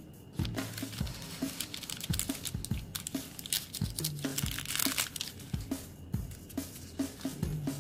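Paper pages and a thin tissue-like sheet rustling and crinkling as a small handmade paper journal is handled and its pages turned, loudest a little past halfway. Background music with a steady beat runs underneath.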